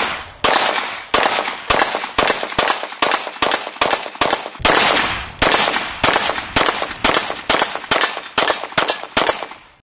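Glock pistol fired in steady semi-automatic shots, about twenty of them at roughly two a second with one short pause midway, each shot trailing off in an echo.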